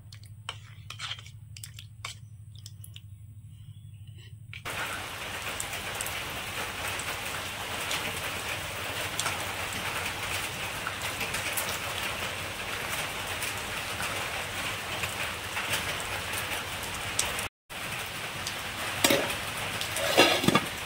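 Steady crackling sizzle of food cooking in a hot pan. It starts about four and a half seconds in, after a few scattered clicks, and breaks off briefly near the end.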